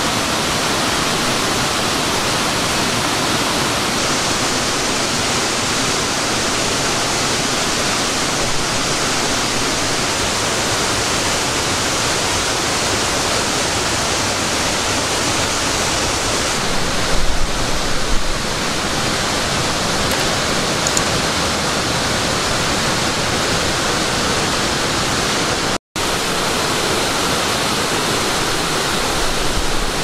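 Steady, loud rushing of a mountain waterfall and its white-water stream, water pouring over rock without a break. Near the end the sound cuts out for a split second.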